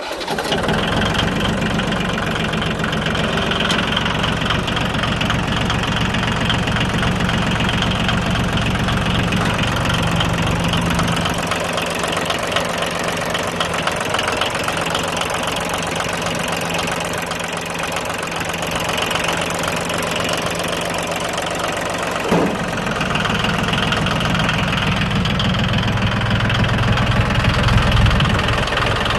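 Yanmar YM2020's three-cylinder diesel idling steadily just after a cold start, running smoothly; it grows louder near the end.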